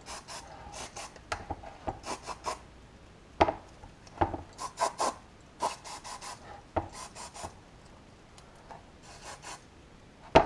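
Cylinder bore of a brake caliper being scrubbed clean by hand, to clean the bore before new seals go in: a series of short strokes in quick groups, easing off in the last few seconds, with one sharp knock near the end.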